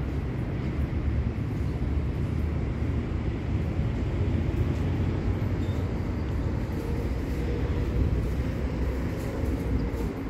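A steady low rumble of vehicle traffic.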